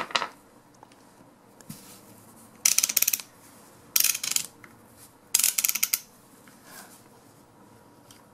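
Ratchet mechanism of a Husky click-type torque wrench clicking in three short runs of rapid ticks, with a single click at the start, as the pawl and spring are worked by hand.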